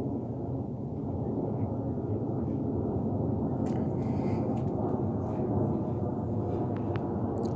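Twin-engine jet airliner passing low overhead with its landing gear down: a steady, deep rumble of jet engine noise.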